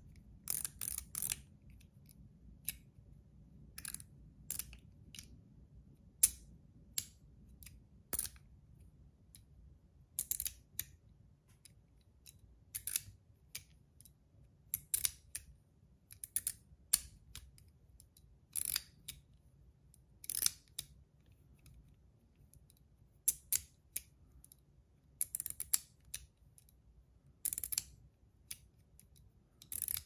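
Zirconium Metal Toys DZ Top D fidget clicking as its two metal bars are flipped and pivoted by hand: sharp, crisp clicks at an uneven pace, often in quick pairs or small bunches.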